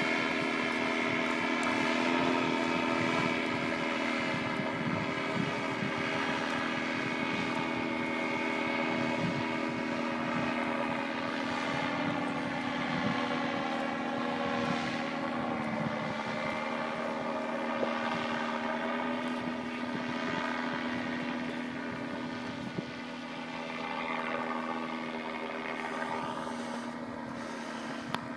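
Bulldog paramotor's Polini two-stroke engine and propeller droning overhead in flight, a steady pitched buzz. The pitch drops a little about halfway through, and the drone grows fainter near the end.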